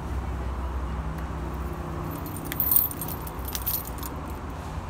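Car keys jangling: a cluster of metallic chinks from a little past two seconds in to nearly four, loudest near the start of the cluster, over a steady low rumble.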